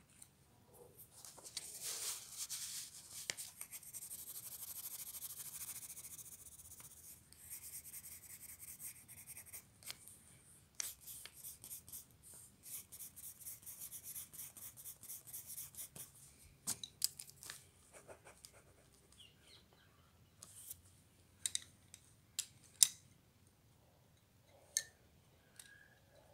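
Pencil scratching on paper while shading a drawing: a long scratchy stretch, then quick back-and-forth strokes at about three a second, then a few sharp clicks in the second half.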